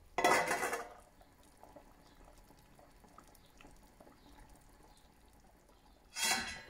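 Stainless steel lid set onto a stockpot, a short metallic clatter and scrape just after the start and again near the end. Between them the pot of water simmers gently with faint small bubbling ticks.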